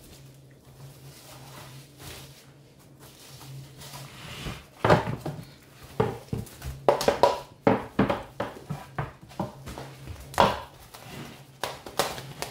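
Plastic cling film being pulled off its roll and stretched over a metal roasting tin. It is quiet for the first few seconds, then a rapid run of crinkling and crackling starts about five seconds in.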